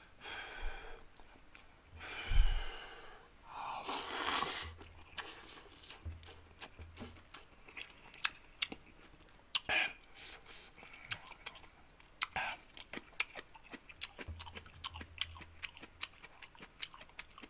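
A man slurping ramen noodles in three noisy draws over the first five seconds, then chewing with a long run of small mouth clicks and smacks.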